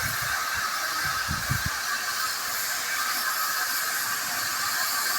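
Steady hiss of steam escaping from the 'Jinty' tank engine 16440 as it stands in steam ready to depart, with a few low bumps about a second in.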